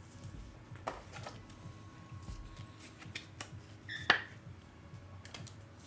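Faint scattered clicks and light taps of small objects being handled on a table, with one short, slightly louder squeak about four seconds in.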